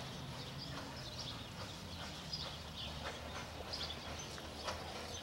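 A horse's hooves thudding at uneven intervals, with birds chirping in the background.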